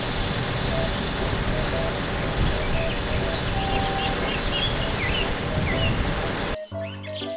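Soft background music with a simple melody over a steady outdoor rushing noise, with a few faint bird chirps. About six and a half seconds in, the noise cuts off and the music carries on alone.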